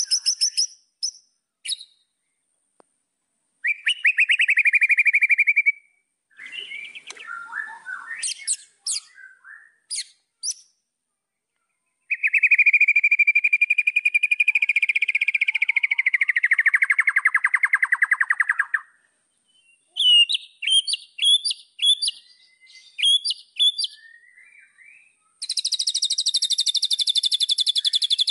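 White-rumped shama (murai batu) singing a loud, varied song: short rapid trills, then a long rattling trill that slowly falls in pitch over about six seconds, a run of short sharp notes, and a high buzzy trill near the end.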